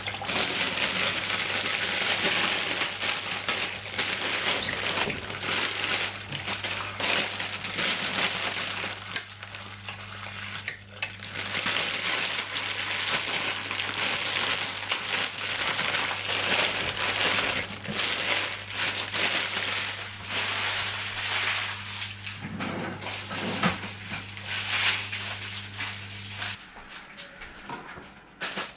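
Kitchen cooking noise: a dense crackling hiss with scattered knocks and clatter of pots and utensils, over a steady low appliance hum that stops about 26 seconds in.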